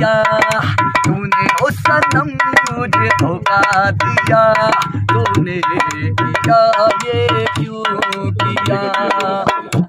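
Indian folk music: a dholak hand drum beating a steady rhythm, about two beats a second, under a sustained held drone, with a voice over it.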